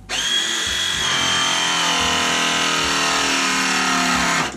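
A power tool's motor running steadily under load, its pitch slowly sinking, starting and stopping abruptly.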